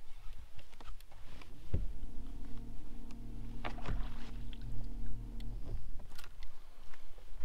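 Electric trolling motor humming steadily, starting about two seconds in and cutting off just before the end, with scattered knocks on the boat deck as a bass is landed.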